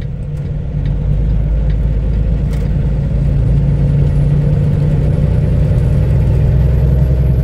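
Semi-truck's diesel engine droning inside the cab while driving, growing louder over the first few seconds. A faint high whine rises slowly from about three seconds in.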